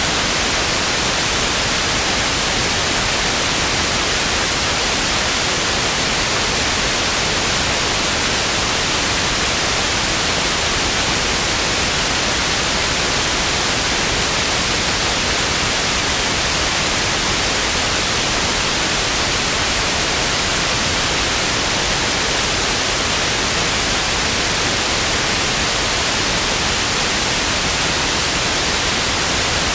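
Television static: a steady, even hiss of white noise with no changes.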